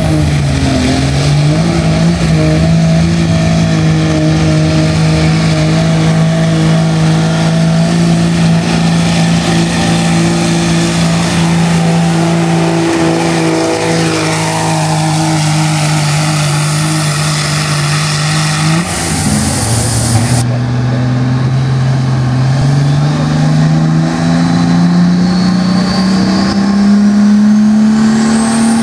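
Turbocharged diesel pickups pulling a sled. For most of the run one engine is held at steady high revs. Then a second truck's engine drops in pitch and climbs steadily, and its turbo whistle rises near the end.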